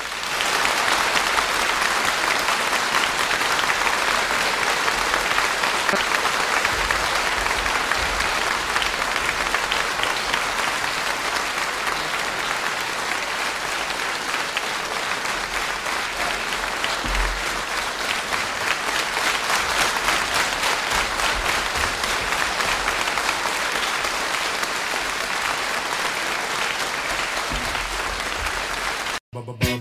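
Audience applauding steadily and loudly, cut off abruptly near the end.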